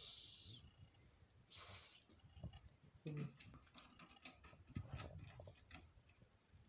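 Domestic cat hissing twice, each a short breathy hiss of about half a second, the second about a second and a half in. Faint scattered taps follow.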